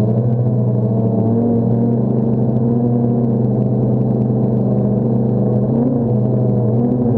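DJI Phantom quadcopter's motors and propellers droning steadily, the pitch wavering slightly as the motors adjust in flight.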